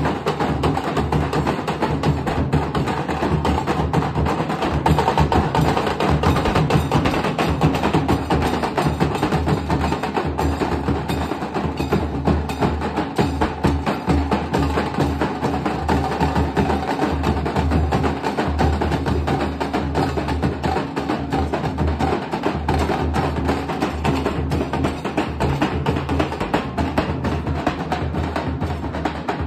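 Nasik dhol ensemble: several large barrel dhols and smaller drums beaten with sticks in a fast, dense, continuous rhythm.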